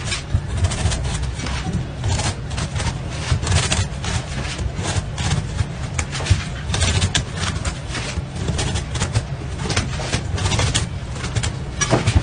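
A cleaver cutting quickly into watermelon rind on a wooden chopping block: a rapid, irregular run of short knocks and clicks, over a steady low rumble.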